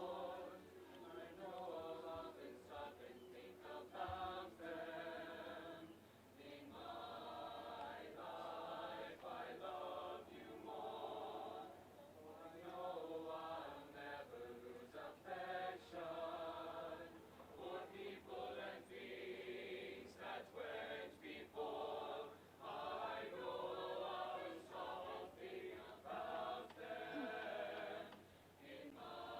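A choir singing, held sung notes that change every second or so in a continuous song.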